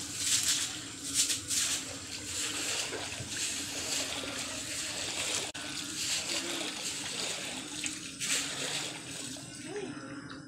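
Floodwater being swept across a tiled floor with a broom: repeated splashing swishes, about one stroke a second, growing fainter near the end.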